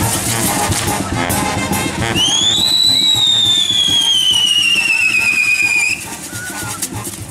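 Fireworks on a burning torito frame crackling and fizzing. About two seconds in, a whistling firework lets out a shrill whistle that rises sharply, then slowly falls for nearly four seconds before cutting off.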